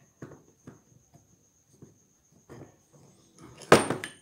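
Motorcycle roller chain and a wooden clamp bar with metal pins being handled and positioned on a plywood board: scattered light clicks and knocks, then a louder clack near the end.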